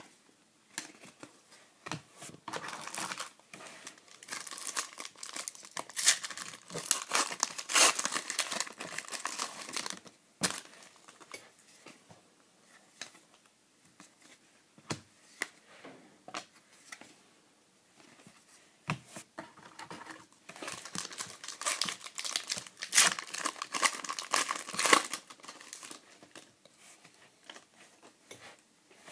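Foil trading-card pack wrappers crinkling and tearing in two long spells of dense crackle, a couple of seconds in and again past the middle. Between them come scattered soft clicks and rustles of cards being flipped through.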